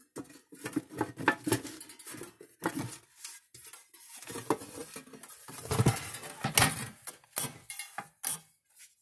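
Sheet-metal case of an old mechanical fence charger being worked loose and pulled apart by hand: irregular metal clanks, knocks and rattles, loudest about six seconds in.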